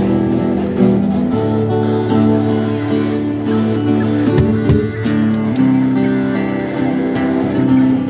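Acoustic guitar playing held, strummed chords through a band's amplification, with a low sustained note beneath. The chord changes about a second and a half in and again about two-thirds of the way through, with a short sliding note in between.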